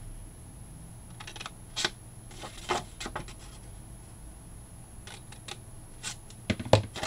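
Scissors snipping into thin cardstock: a handful of short separate cuts with paper rustling between them, and a louder knock near the end.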